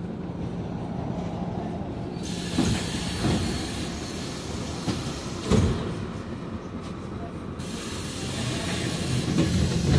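Inside a Scania GN16 bus on the move: a steady low engine drone and road rumble, with a few knocks and thuds from bumps, the loudest about five and a half seconds in. Two stretches of rushing hiss come and go over it.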